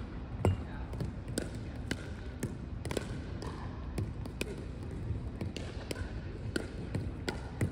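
A pickleball rally of soft drop shots: sharp pops of paddles hitting the plastic ball, mixed with the ball bouncing on the hardwood court, about two a second.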